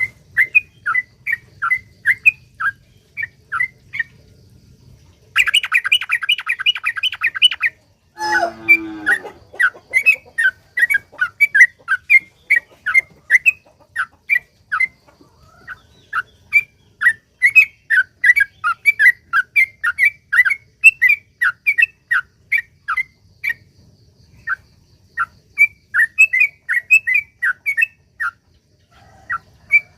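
Yellow-vented bulbul (trucukan) singing loud, short chirping notes in quick succession. About five seconds in comes a fast, unbroken rattling run (the long 'ropel') lasting a couple of seconds, followed by a lower call that falls steeply in pitch.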